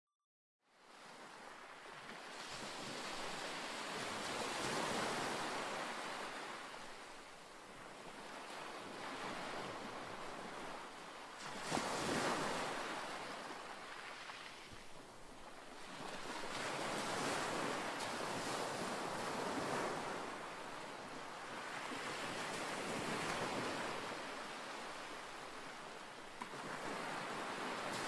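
Sea waves breaking on a rocky shore, swelling and easing every five or six seconds, with one sharper crash about twelve seconds in. The sound fades in at the start.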